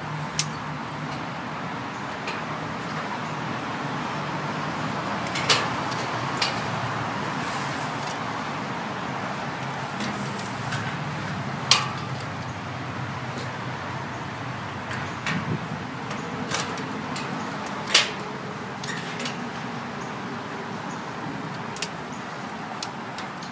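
Scattered sharp clicks and knocks of a light-pole banner bracket's metal hardware being worked from the ground with a long pole, over a steady background rumble like street traffic. The loudest clicks come about 12 and 18 seconds in.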